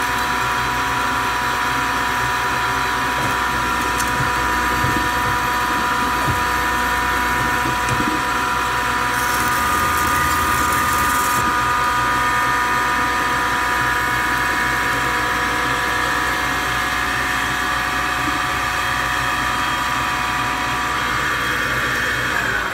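DoAll C-305A horizontal band saw running with a steady mechanical whine. Near the end the whine slides down in pitch as the machine begins to wind down.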